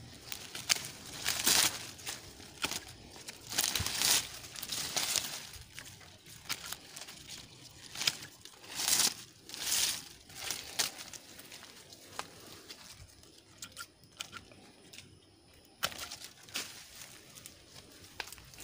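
Grapevine leaves and shoots rustling and tearing as they are stripped from the branches, in irregular bursts with a few short sharp clicks.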